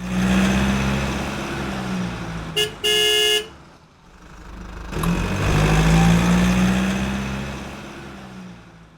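A car's engine passes and fades, with a car horn sounding twice, a short toot then a longer honk, about three seconds in. A second vehicle then approaches and fades away.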